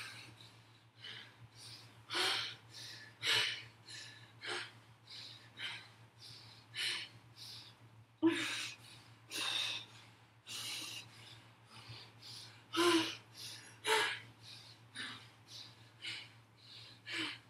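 A woman breathing hard from exertion: sharp, rhythmic exhalations and gasps about two a second, a few of them voiced.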